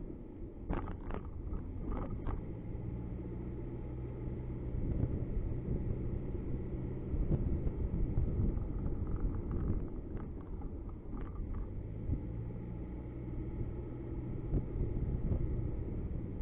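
Car engine and road noise heard from inside a moving car: a steady low rumble with an engine hum that comes and goes as the car drives, and a few short clicks about a second in.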